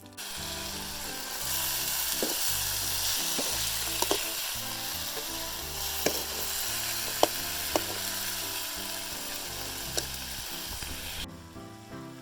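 Frogs frying in hot oil in a pan: a steady sizzle with a few sharp pops of spattering oil. It starts abruptly and cuts off suddenly near the end.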